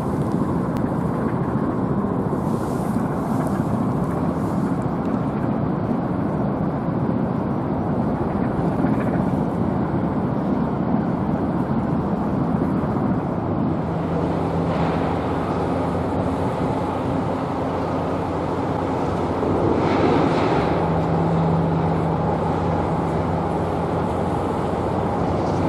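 Steady outdoor rumble of traffic with wind on the microphone. A low engine hum grows stronger about halfway through.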